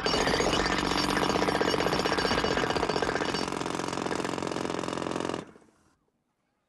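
Pneumatic jackhammer breaking up pavement: a loud, rapid hammering that starts abruptly and cuts off about five and a half seconds in.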